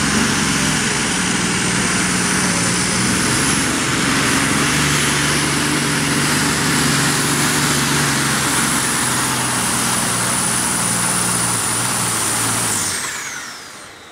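Modified pulling tractor's engines running flat out under load as it drags the weight sled, with a steady high whine over the engine noise. About 13 s in the throttle closes: the engine noise dies away and the whine falls in pitch.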